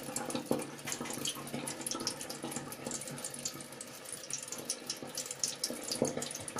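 Tap water running quietly into a stainless steel sink: a steady, uneven trickle and splash.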